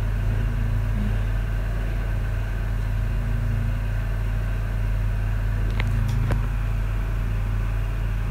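Steady low mechanical hum at an even level, with a couple of faint ticks about six seconds in.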